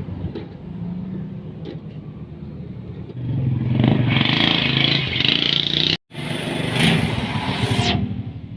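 Yamaha motorcycle engine idling, then revved louder for about five seconds, with a brief sudden cut in the middle before it drops back.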